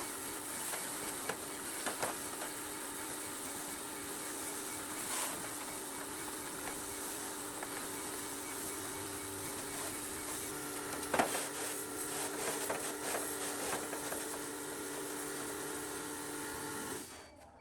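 A power tool running steadily, a hiss over a motor hum with a few light knocks, cutting off abruptly near the end.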